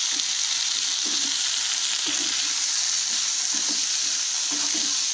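Steady sizzling from a kadai of boiled vegetables and ground coconut paste cooking over the flame, with soft stirring strokes every second or so as the avial is mixed.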